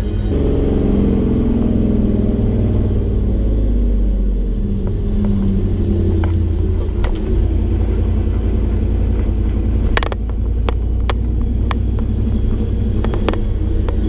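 The 8.1-litre Vortec 8100 V8 swapped into a 1980 Chevy C30 rollback, running with a deep, loud rumble. The engine note falls over the first few seconds. From about ten seconds in come several sharp clicks or rattles.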